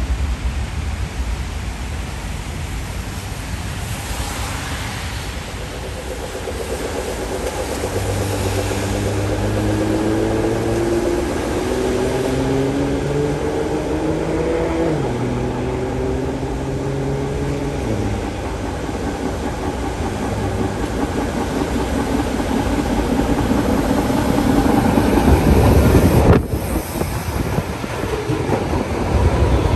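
MBTA Red Line subway train running, its electric traction drive whining in tones that climb in steps and twice drop back, as heard when the train pulls away. The train noise grows louder until it cuts off abruptly about 26 seconds in.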